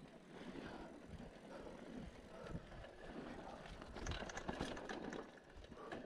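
Cannondale SL4 Trail mountain bike riding down a rough dirt trail: tyres rumbling over the ground and the bike rattling, with a burst of sharper clattering knocks about four to five seconds in.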